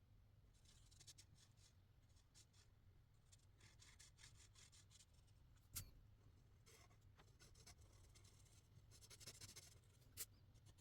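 Faint scratching of a marker tip stroking across paper, in short repeated strokes, with two sharp clicks, one about six seconds in and one near the end.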